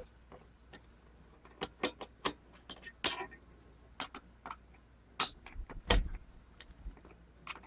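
Scattered small metal clicks and taps as a mortise lock's parts are handled and taken apart, with a low knock about six seconds in.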